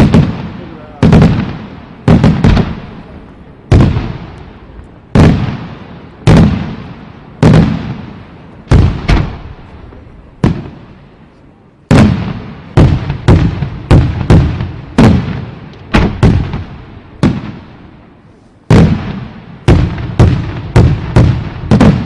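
Fireworks going off: a long run of sharp booms about once a second, each with a rolling echo that fades away, coming in quicker clusters in the middle and again near the end.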